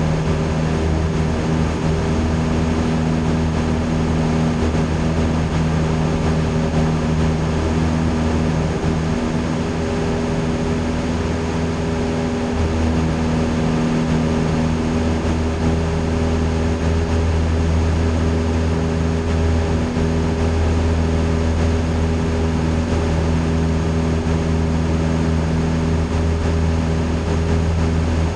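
Single-engine piston airplane's engine and propeller droning steadily at cruise power, heard inside the cockpit.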